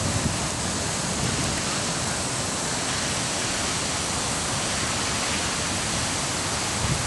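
Steady hiss of water spraying from MP rotary sprinkler nozzles watering a lawn.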